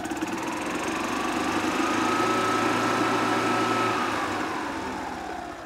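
Kawasaki FE290 single-cylinder engine of a Club Car DS gas golf cart, run with the gas pedal in neutral on the maintenance bypass setting: it revs up over the first second or so, holds steady for a couple of seconds, then winds down near the end.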